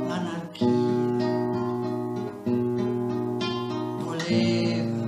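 Acoustic guitar strumming chords in an instrumental passage of a singer-songwriter song, a new chord struck about every two seconds and left to ring.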